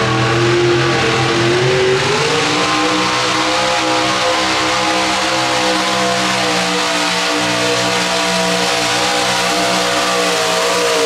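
A pro stock pulling mini truck's engine running at high revs through its open upright hood stacks as it pulls the weight sled. The pitch climbs over the first couple of seconds, then holds high and steady.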